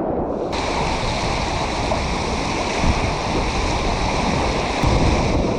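Whitewater of the Middle Fork Satsop River rushing steadily around a kayak, with a heavy low rumble; the high hiss of the water comes in abruptly about half a second in.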